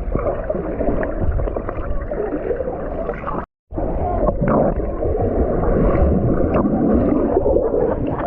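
Rushing water of a stream and waterfall: a steady, noisy wash with a strong low rumble, cutting out for a split second about three and a half seconds in.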